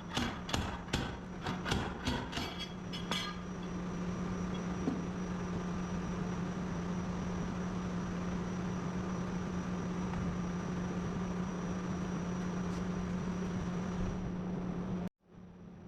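A quick run of sharp knocks, about three a second, for the first three seconds, then a steady mechanical hum with a low tone and a faint high whine. The hum cuts out suddenly near the end and returns.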